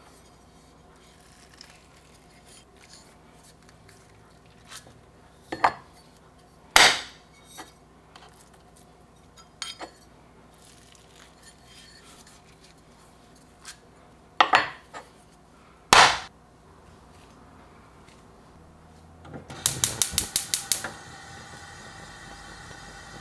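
A plastic hand burger press knocking sharply on a wooden cutting board as beef patties are pressed, two pairs of knocks. Near the end a gas stove igniter clicks rapidly about eight times and the burner catches into a steady flame hiss.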